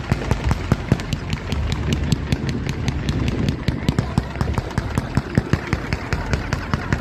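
Ground-launched fireworks firing in a rapid string of sharp pops, several a second, over a low rumble.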